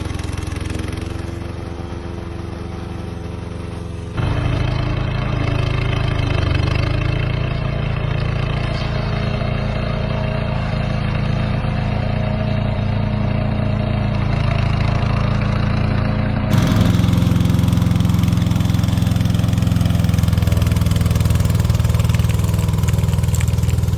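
Petrol engine of a remote-control tracked slope mower running steadily under load, with its tone and level changing abruptly about four seconds in and again a little past sixteen seconds.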